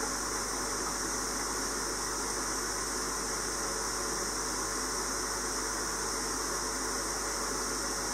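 Steady hiss with a constant low hum and no distinct events.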